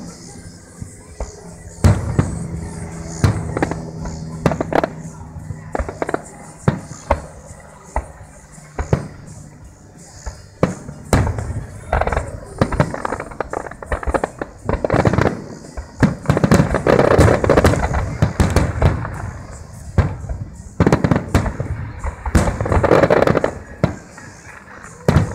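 Aerial firework shells bursting one after another in a display finale. Separate sharp bangs give way to two dense stretches of rapid booms and crackling, one past the middle and one near the end.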